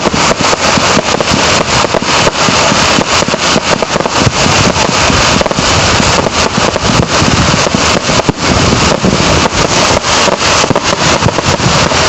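Fireworks display going off: a loud, continuous crackle and hiss packed with many sharp pops and bangs, with no pause.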